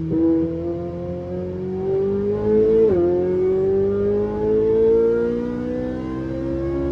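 Ferrari with an F1-style exhaust accelerating hard: the engine note climbs steadily, drops sharply at an upshift about three seconds in, then climbs again.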